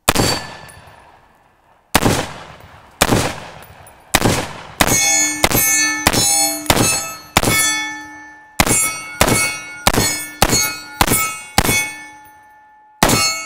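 A .308 Springfield Armory SAINT Victor AR10 pistol fires about seventeen shots at a steel target, spaced from under half a second to nearly two seconds apart. The first few shots bring no ring. Later most shots are followed by the ringing clang of a steel plate being hit.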